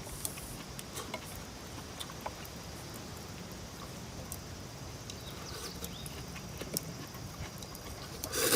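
Scattered light clicks and taps over a steady faint hiss with a thin high drone, then one louder short noise near the end.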